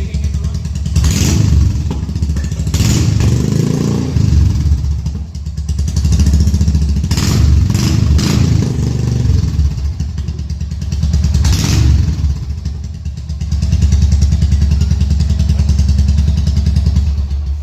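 Royal Enfield Hunter 350's single-cylinder engine running with its silencer removed, ticking over loudly between several quick throttle blips.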